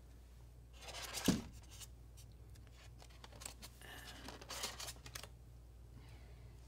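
A wrapped statue head being worked out of a polystyrene foam packing tray: scraping and rustling in two spells. The first ends in a sharp knock about a second in, and the second runs from about three to five seconds in.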